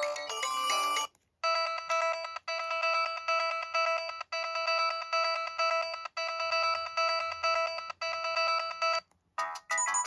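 Samsung SGH-T410 flip phone's speaker previewing its preset polyphonic alarm tones. One electronic melody cuts off about a second in. A repeating alarm pattern follows: one chord of bright electronic tones beeping rapidly, in phrases that restart about every two seconds. Near the end a different melody begins as the next tone is selected.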